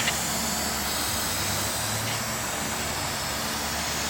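Steady mechanical hum with an even hiss, as of a machine running in a workshop, with a light click or two right at the start.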